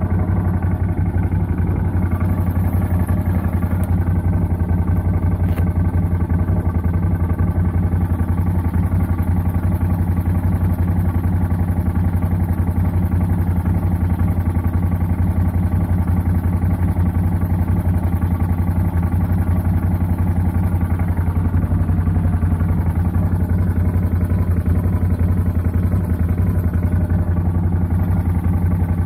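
CF Moto 850 quad's V-twin engine idling steadily at an unchanging speed.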